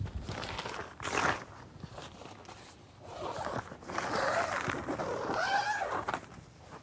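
Tent's mesh door zipper being drawn open: a long zip through the second half, its pitch rising and falling.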